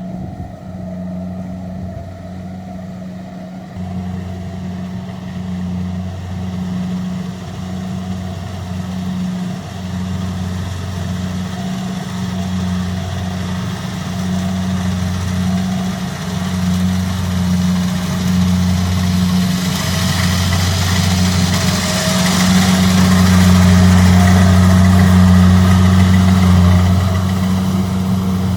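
Kubota DC-70 rice combine harvester running, its diesel engine a steady low hum throughout. About two-thirds of the way through, a rushing noise joins in and the machine grows noticeably louder, easing slightly just before the end.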